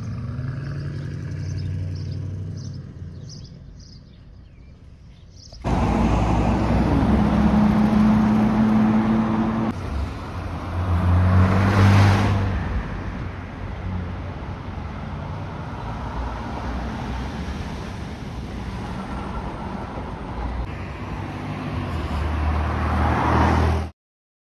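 Porsche Cayenne engine pulling away and fading. After a cut, a Porsche 911 GT3 RS's naturally aspirated flat-six drives along a street among other traffic and is loudest as it passes, about twelve seconds in. The sound cuts off abruptly just before the end.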